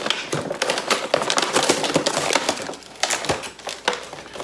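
Clear plastic blister packaging crackling and clicking as it is pulled and flexed away from a cardboard backing card, a rapid irregular run of sharp clicks that thins out in the last second or so.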